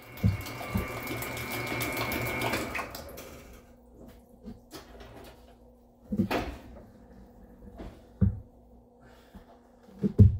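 Kitchen tap running with a faint hum, shut off after about three seconds, followed by a few scattered knocks and clunks of things being handled.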